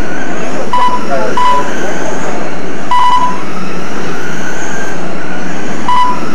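Electric Traxxas Slash RC short-course trucks racing on a dirt oval, their motor whine rising and falling as they go around the track. Short, high beeps from the lap-timing system sound as trucks cross the line, several times, two of them close together early on.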